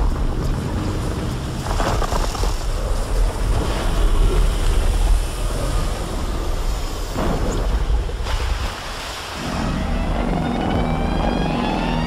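Wind noise buffeting the microphone over a steady rumble of open water, with a few brief louder gusts. In the last couple of seconds a low pitched drone with a rising whine joins it.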